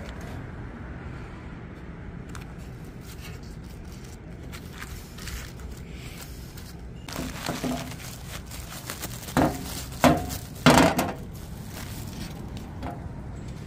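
Several loud metallic clanks and knocks, each ringing briefly, clustered in the second half, over a steady low hum.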